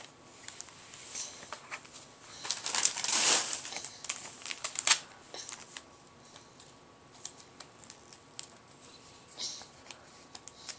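Wrapping paper crinkling and tearing in a toddler's hands as she unwraps a present, in irregular rustling bursts, the loudest about three seconds in.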